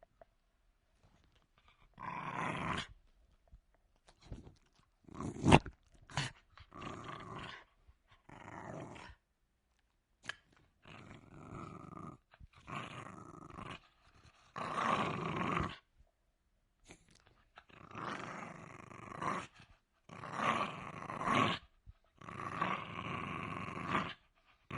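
Jack Russell Terrier growling in a run of short growls, each about a second long, with brief pauses between them. There is a sharp click about five and a half seconds in.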